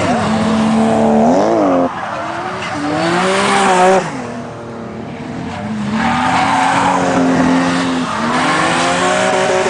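Drift cars' engines revving hard and falling away as the throttle is worked, with tyres squealing through the slide. The engine note cuts off sharply about two seconds in and again about four seconds in, then another car revs up and holds high revs toward the end.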